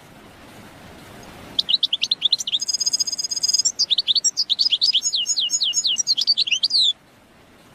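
European goldfinch singing: a fast run of high twittering and slurred notes with a short buzzy trill partway through. It starts about a second and a half in and stops a little before the end, over a faint background hiss.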